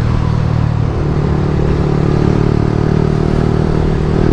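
Motorcycle engine running steadily under way at a constant speed, with a low, even tone and no gear change or rev swing.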